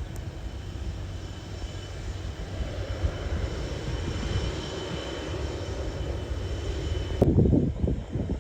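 Aircraft turbine engine running, a steady high whine over a low rumble. About seven seconds in the sound changes abruptly to a louder, uneven low buffeting noise.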